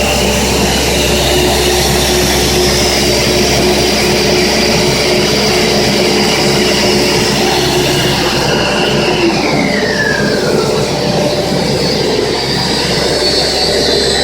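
Plastic pipe extrusion line running: steady machine noise with several whining tones, one of which slides down in pitch about nine seconds in.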